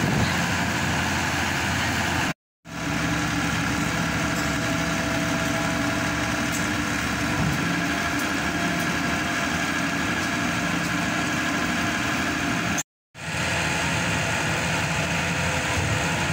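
Diesel engine of a hydraulic static pile driver running steadily at idle, a constant hum that cuts out to silence twice, briefly, about two and a half seconds in and near thirteen seconds.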